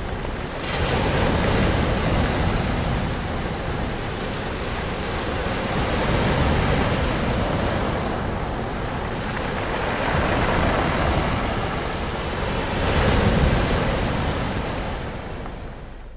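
Ocean surf: waves breaking and washing ashore in a continuous hiss, swelling and ebbing about every four seconds.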